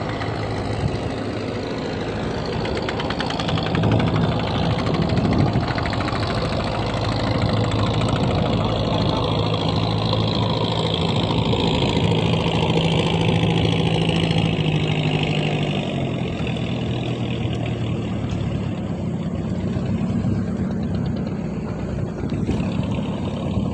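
Small wooden boat's engine running steadily, its pitch dropping about two-thirds of the way through and rising again a few seconds later, over a steady hiss of wind and water.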